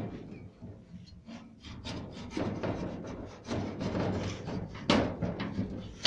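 Rusty steel-framed door with a sheet panel being worked open by hand, scraping and rattling in irregular strokes, with a sharp metal knock about five seconds in.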